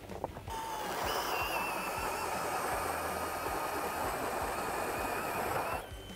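Power ice auger drilling a hole through lake ice: the motor spins up with a short rising whine about half a second in, runs steadily with a whine over the noise of the bit cutting through the ice, and stops abruptly near the end.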